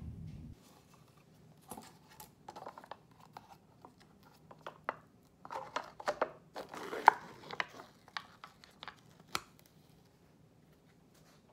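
Plastic lid being worked off a food tub by hand: crinkling, tearing and sharp clicks, densest a little past the middle, then quiet near the end.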